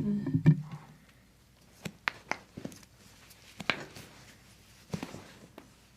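A brief louder low sound at the start, then faint, scattered sharp clicks and taps of handling during a chiropractic treatment.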